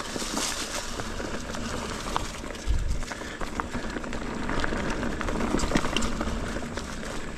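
Ibis Ripley AF mountain bike ridden over a rooty dirt trail: tyre noise on dirt and roots with many scattered clicks and rattles from the bike, and a heavier thump about two and a half seconds in.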